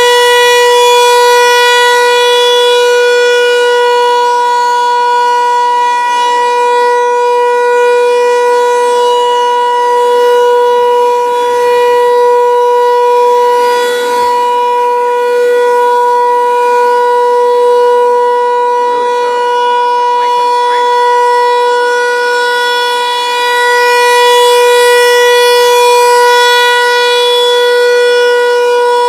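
Federal Signal 508 tornado siren sounding a steady alert tone, one held pitch. Its loudness swells and fades slowly as the rotating siren head turns.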